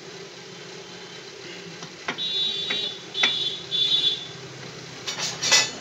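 Cast-iron rotavator gearbox housing clinking and scraping against a lathe's four-jaw chuck as it is seated by hand. There are a few sharp metal clicks and short ringing scrapes from about two seconds in, then a louder clatter of knocks near the end, over a steady low hum.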